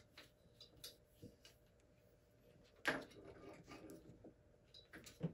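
Faint handling noises of scooter handlebar parts and wires being fitted together by hand: scattered soft clicks and rustles, with one louder scrape about three seconds in.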